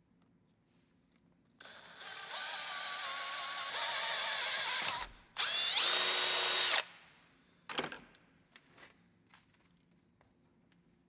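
Small electric power tool motor running for about three seconds with a wavering whine, stopping briefly, then spinning up to a louder, higher steady whine for about a second and a half before shutting off. A sharp click follows.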